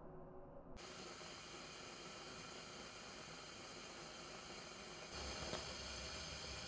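Faint steady hiss of a gas stove burner. About five seconds in it grows louder, with a few faint crackles as yellow flames flare up under chicken held over the flame.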